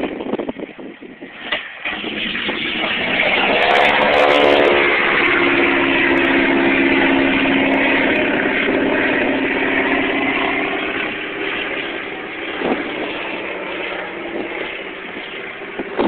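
Biplane's piston engine at full power as the plane passes low and climbs away towing a banner, loudest about four seconds in with its pitch falling as it goes by. A few sharp pops, near the start and about twelve seconds in, fit the engine backfiring.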